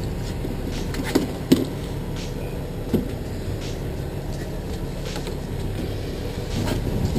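Fishing boat's engine running with a steady low rumble, with a few sharp knocks over it, the loudest about a second and a half in.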